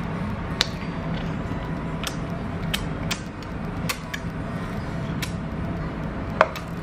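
About seven light, sharp clicks and taps scattered over several seconds, the loudest near the end, over a steady low hum.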